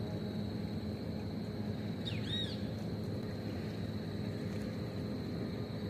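Steady low rumble of outdoor river ambience, with one short arched, whistled bird call about two seconds in.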